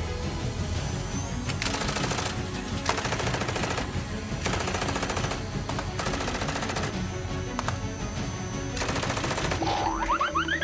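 Five bursts of rapid rattling, each about a second long and a second or two apart, over background music, with a few quick rising glides near the end.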